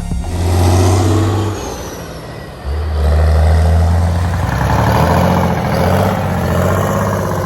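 Heavy diesel engine of a cabover semi truck running: revved for about a second and a half, easing back, then revved up again about two and a half seconds in and held at speed.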